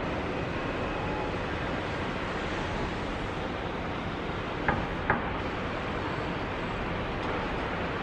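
Steady din of a shipyard at work, with two sharp clanks about halfway through, less than half a second apart.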